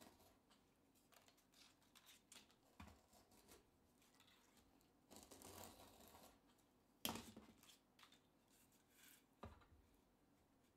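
Utility knife blade slicing through sandpaper around the edge of a round plywood disc: faint scratchy cutting strokes, with a longer stretch of cutting about five seconds in. A sharp tap about seven seconds in, and a lighter one near the end.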